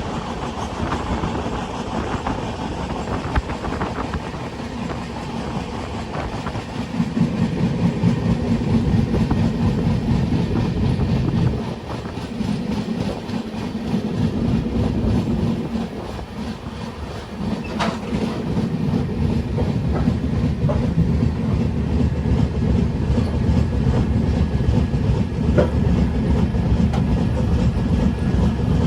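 A train running on the rails with a steady low rumble that dips briefly twice midway.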